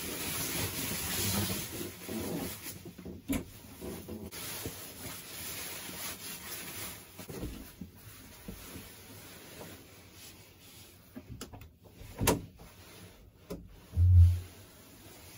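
Clothes rustling and handling noises of someone dressing and gathering belongings, with scattered light knocks, a sharp knock about twelve seconds in and a louder, short low thump near the end.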